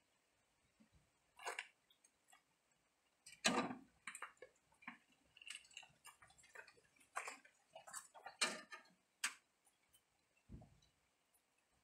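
Faint, irregular clicks and knocks from a Goldoni two-wheel tractor being handled and moved with its engine off. The loudest come about three and a half seconds in and again around eight to nine seconds, with a dull low thump near the end.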